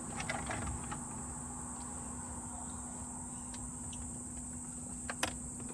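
Steady high-pitched insect chorus, with a sharp click about five seconds in.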